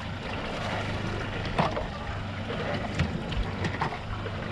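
Fishing boat at sea: the boat's engine idling as a low steady hum under wind and water noise, with a few short sharp knocks on the boat.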